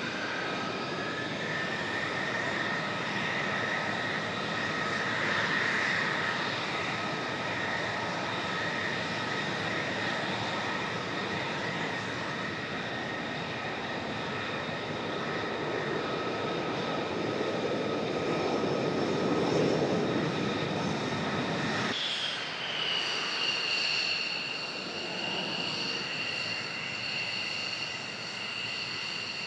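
Fighter jets taxiing past: the steady whine of their turbofan engines at low power over a rumble that swells as one passes close. The sound cuts abruptly about three-quarters of the way through to a higher whine that dips slightly in pitch and then holds steady, with less rumble.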